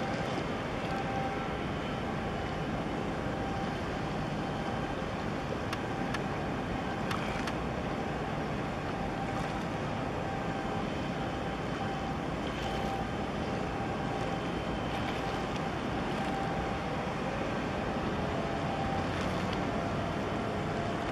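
Steady drone of a boat engine under water wash and wind noise, with a faint steady whine over it and a few light clicks about six to seven seconds in.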